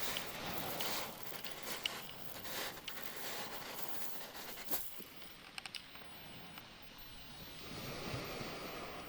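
Ocean surf washing in: the hiss of a wave spreading and draining away, fading after about five seconds, with a few short ticks, then another wave swelling in near the end.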